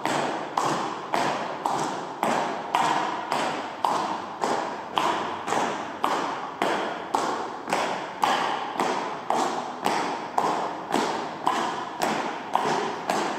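Footsteps of high heels striking a hard gallery floor in a slow, even walking rhythm, a little under two steps a second, each step echoing briefly.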